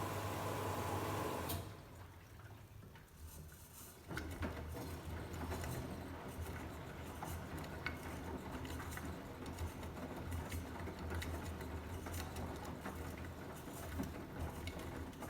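Beko washing machine mid-wash: a steady hum stops about one and a half seconds in. From about four seconds the drum motor hums low, with water pattering and many small clicks as the wet towels tumble.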